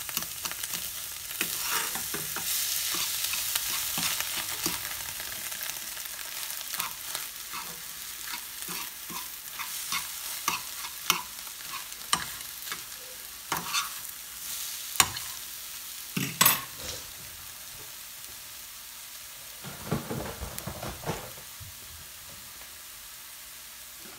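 Scrambled eggs and chorizo sizzling in a nonstick frying pan while a metal fork stirs and scrapes them, with frequent sharp taps of the fork against the pan. The stirring thins out after the middle, leaving mostly the steady sizzle with a brief flurry of taps later on.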